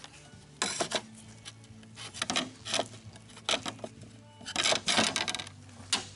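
Metal spatula scraping and clacking on a thin aluminium sheet as thick two-part sealant is mixed on it, in about six irregular bursts of scraping, the longest about two-thirds through.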